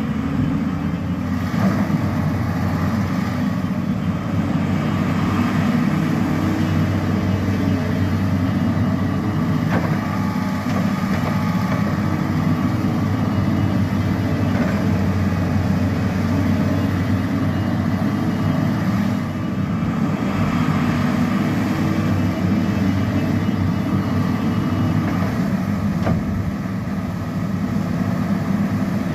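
Volvo excavator's diesel engine running steadily while the machine is tested after a swing motor oil seal replacement.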